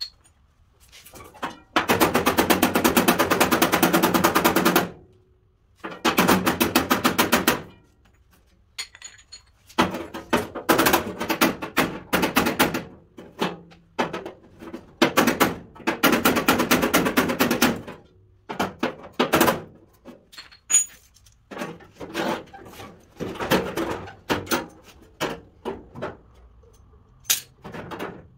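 Hammer blows on the sheet-steel rear fender of a 1953 Chevy truck, coming in bursts of rapid strikes a few seconds long with short pauses between, as the torn, cracked edges are knocked back into rough shape.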